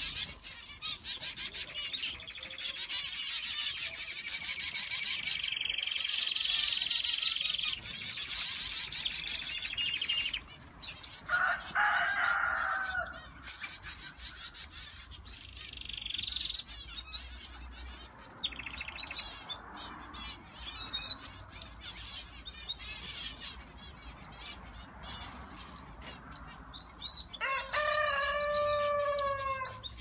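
Small aviary birds chirping and singing together, with dense high twittering and trills for the first ten seconds and scattered chirps after that. Near the end a different, lower call repeats about six times in quick succession, each falling in pitch.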